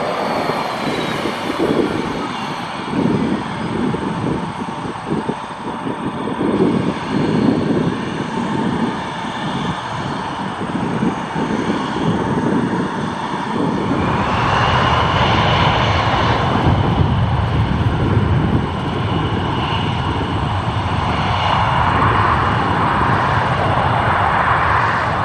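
Bombardier CRJ900 regional jet's two rear-mounted General Electric CF34 turbofans running as it taxis, with a low rumble. About halfway through the engines spool up: the noise grows louder and fuller, and a high whine sets in and holds.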